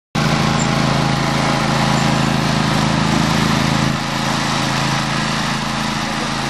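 Grillo Climber 9.16 ride-on mower running steadily while its deck cuts long grass, a steady engine note over a broad rushing noise. It cuts in suddenly right at the start.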